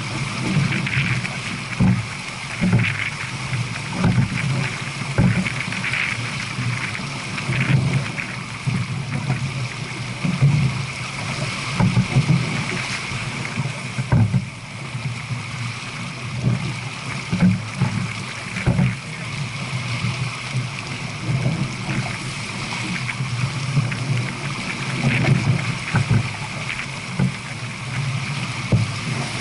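Water rushing and splashing along the hull of a J/24 sailboat running downwind at about 7 knots, with frequent irregular low thuds.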